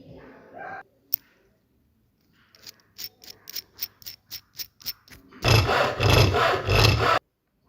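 Hand tool working wood in back-and-forth strokes, like a saw or rasp: light, short strokes at about four a second, then a louder, steady run of rasping strokes near the end.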